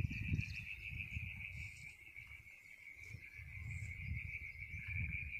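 Steady, high insect trilling at one unchanging pitch, with an uneven low rumble underneath.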